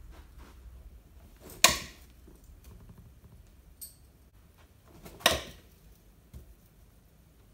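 Thrown bo-shuriken (steel throwing spikes) striking the target twice, each a sharp impact with a short ringing tail, about three and a half seconds apart. A faint click falls between them.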